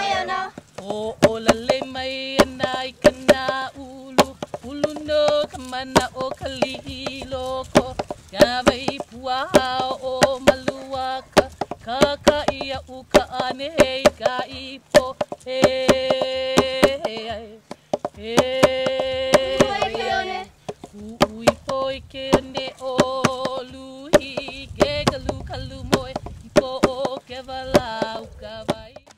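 Hawaiian hula chant (oli) sung in long held notes, accompanied by the ipu heke double-gourd drum beaten in a steady rhythm of sharp strikes.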